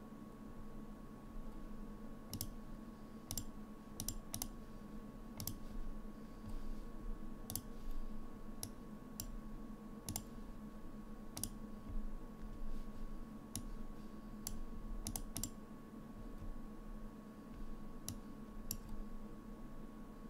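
Computer mouse clicking at irregular intervals, about eighteen sharp clicks with some in quick runs of two or three, over a steady faint electrical hum.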